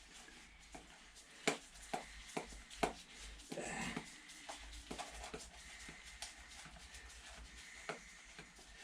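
Scattered faint clicks and light knocks of hands and tools working on an engine's turbo plumbing, with a short scraping rustle about three and a half seconds in.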